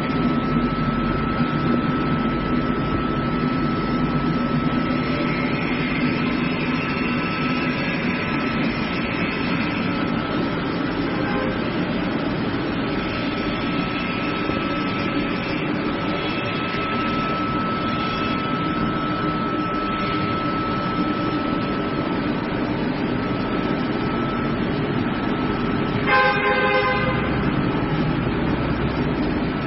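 Fruit blanching cooking machine running, a steady mechanical hum with a constant thin high whine, while water boils in its large open pan. About 26 seconds in a brief higher tone with several overtones sounds over it.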